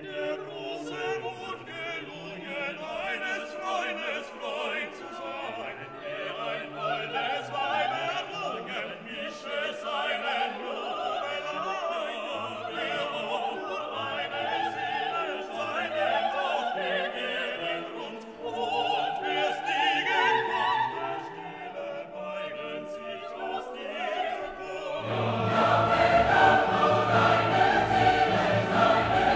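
Background music: an operatic, classical-style piece with choir and orchestra, swelling louder and fuller near the end.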